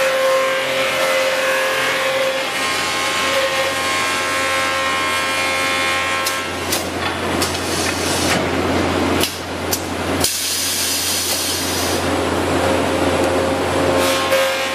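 Automatic wood threading machine running: a steady motor hum and whine under the noise of the cutter head machining wooden rods. Several sharp clicks come in the middle, and there is a brief hiss about ten seconds in.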